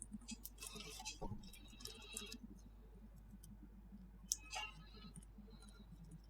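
Slime being pressed and poked by hand, giving faint clusters of soft clicks and small crackling pops of trapped air, then a quieter stretch and one sharp click with a short crackle a little past four seconds.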